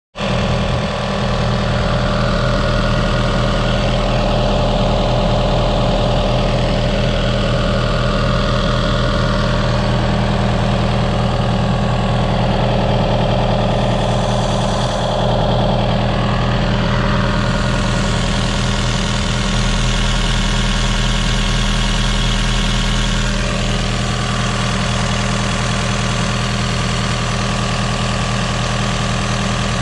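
Diesel engine of a 2018 Yanmar ViO45-6A mini excavator idling steadily.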